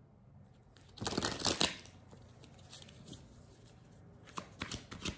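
Deck of reading cards being handled and shuffled: a short rustle of cards about a second in, then a quick run of card flicks, several a second, starting near the end.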